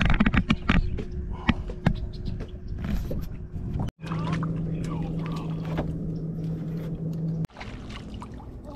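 A boat motor running with a steady low hum, with knocks and clatter over the first couple of seconds. The sound breaks off abruptly about four seconds in and again near the end.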